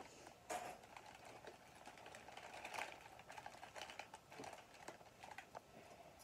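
Near silence, with faint scattered small clicks and light rustling from hands handling small objects, the clearest about half a second in and again around the middle.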